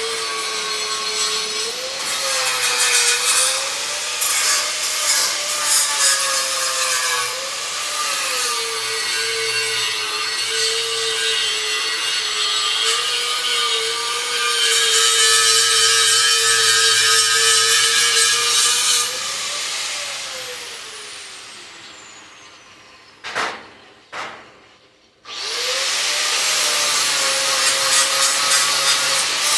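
Electric power tool running under load, its motor pitch sagging and recovering as it bites into the work. About 19 s in it is switched off and winds down, two short knocks follow, and about 25 s in it starts again and spins back up to speed.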